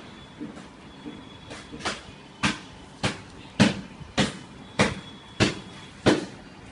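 A run of evenly spaced knocks, about three every two seconds, faint at first and louder from about two seconds in, some eight strong knocks in all.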